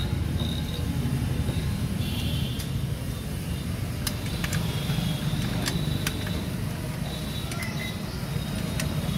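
Sharp metallic clicks and knocks as the stock chrome muffler of a Harley-Davidson is handled and worked loose, several of them in the second half, over a steady low rumble.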